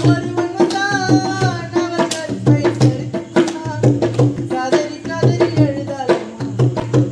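Gana song accompaniment: a dholak drum beaten by hand in a steady, quick rhythm, with a wavering melodic line above it.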